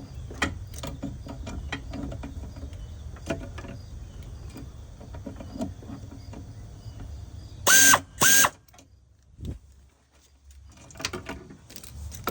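Hand ratchet clicking in short runs, with light metal tool clinks, as bolts are worked during the ECM install. About eight seconds in come two loud, short, sharp sounds half a second apart, followed by a brief near-silent moment.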